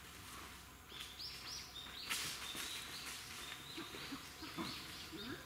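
A songbird singing a run of short, high, clear notes, about three a second, starting about a second in. A brief noisy burst about two seconds in is the loudest sound.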